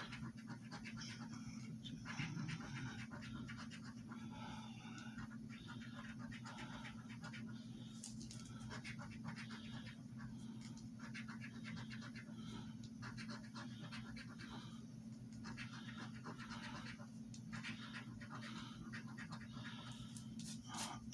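A coin scraping the coating off a scratch-off lottery ticket on a hard tabletop: faint rasping strokes in short runs with pauses between them, over a steady low hum.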